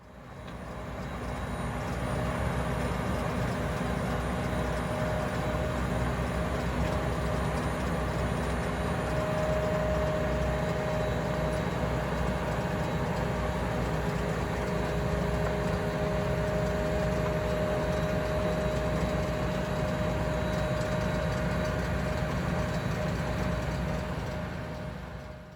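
Tractor and potato-harvester machinery running steadily, a continuous low engine rumble with a faint steady whine, fading in over the first couple of seconds and out at the end.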